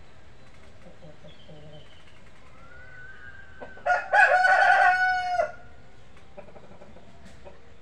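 A rooster crows once, loud and held level for about a second and a half, starting about four seconds in. A fainter call is heard shortly before it.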